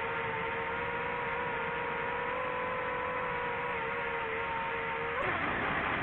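DJI FPV drone's motors and propellers whining steadily in flight. About five seconds in the pitch drops suddenly with a rush of air noise, then climbs again as the throttle changes.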